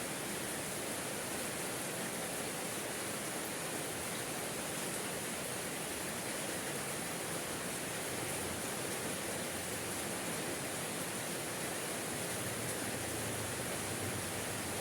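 Steady rainfall, an even hiss that does not change.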